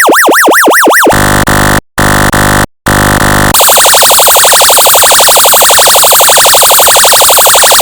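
Electronically generated emergency siren tones: a fast yelp sweeping up and down about three to four times a second, then three short blasts of a harsh buzzing horn-like tone. From about three and a half seconds in, a rapid pulsing alarm tone takes over.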